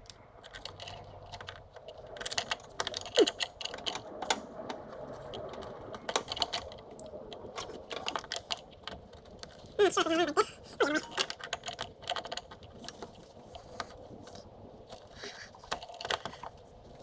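Irregular light clicks and clattering of small metal parts and tools being handled while a throttle cable is fed through and fitted in the engine bay, with a brief squeak near the middle.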